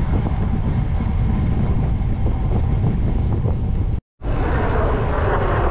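Wind rushing over the microphone and bicycle tyres rolling on tarmac while riding, a steady loud rush. The sound cuts out for a moment about four seconds in, then the same rush resumes.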